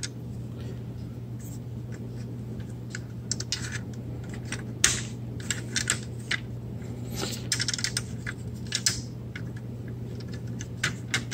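Small hard-plastic clicks and scrapes, irregular and in little clusters, as toy sniper rifle accessories are pressed into a Transformers figure's plastic hands. A steady low hum runs underneath.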